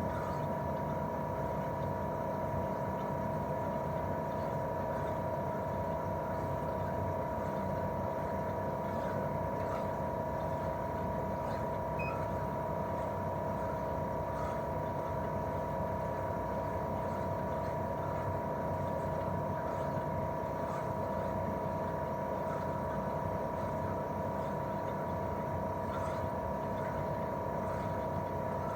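Daikin R28RMV mini-split outdoor unit running in cooling mode: its twin-cylinder swing compressor and propeller fan run steadily, a constant two-tone whine over a low hum.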